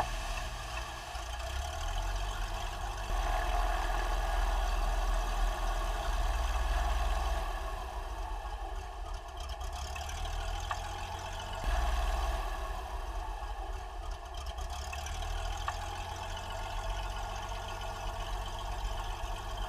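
Single-engine Cessna floatplane's piston engine running at low power with the propeller turning as the plane taxis on the water: a steady low drone with a rush of noise above it, jumping louder for a moment about twelve seconds in.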